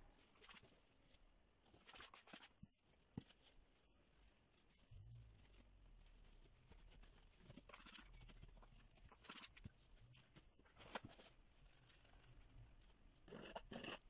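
Paintbrush scrubbing paint onto a canvas: faint scratchy strokes, half a second to a second long, every second or two, with a longer one near the end.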